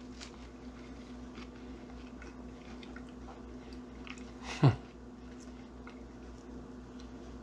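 A man biting into and chewing a Nutella-and-banana sandwich on cinnamon bread: faint soft mouth sounds and small clicks over a steady low hum. About four and a half seconds in comes one brief vocal sound falling steeply in pitch.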